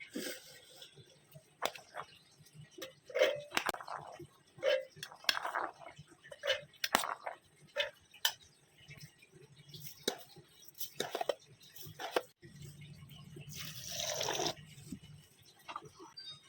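Kitchen preparation of pomegranate juice: irregular taps, clicks and short wet, dripping sounds. About fourteen seconds in there is a longer burst of hissing noise.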